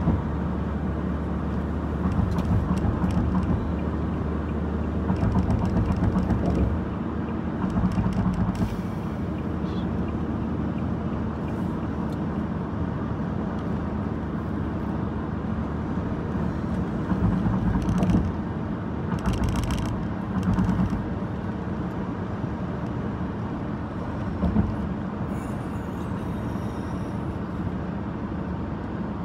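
Steady road and engine noise inside a car cruising on a highway: a low hum with tyre rumble, rising in a few brief louder swells.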